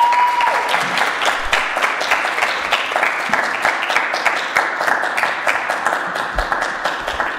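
Small audience applauding, many hands clapping together and dying down a little toward the end.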